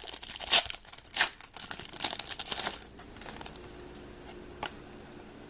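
Trading cards and plastic packaging being handled, with crinkling and sharp rustles in the first few seconds, then quieter handling with one small click later on.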